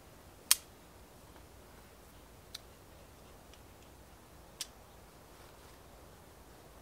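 Three short, sharp clicks about two seconds apart, the first much the loudest, over a quiet steady background.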